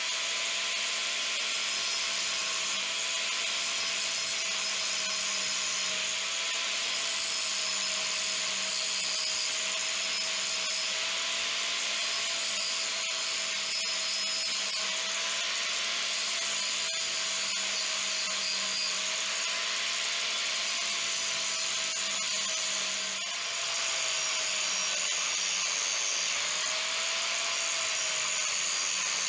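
INGCO angle grinder running steadily with an abrasive disc grinding the edge of a leaf-spring steel machete blade: a high whine over a hiss of grinding, its pitch wavering slightly as the disc bears on the steel.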